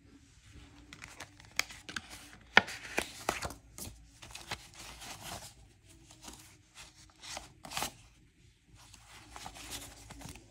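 Paper banknotes and envelopes being handled by hand: an irregular run of crisp rustles and sharp paper snaps as cash is sorted and counted, with one louder snap about two and a half seconds in.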